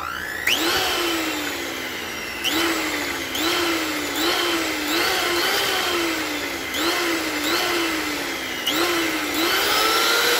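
Electric hand mixer running with its beaters churning a thin egg and coconut-milk mixture in a steel saucepan. The motor's whine jumps up in pitch and then slowly sinks, over and over, about once a second.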